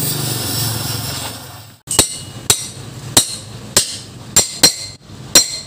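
Oxy-acetylene cutting torch hissing steadily on a steel wheel hub, then, after an abrupt break, about seven sharp ringing hammer blows on a steel truck brake shoe, knocking off the old lining.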